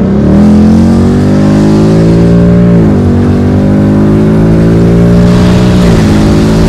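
A 2020 Mustang GT's 5.0-litre Coyote V8 through an aftermarket Pypes exhaust, accelerating hard at high revs, heard from inside the cabin. The engine note climbs, drops sharply about three seconds in as the 10-speed automatic upshifts, climbs again and drops again at a second upshift near the end.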